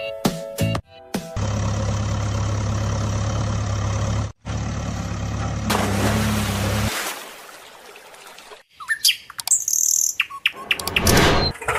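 A loud, steady, even-pitched drone for about five and a half seconds, then birds chirping near the end.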